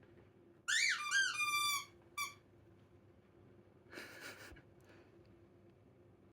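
A miniature schnauzer puppy gives a run of high-pitched whines that rise and fall, about a second long, then one short whine. A brief breathy huff follows a couple of seconds later.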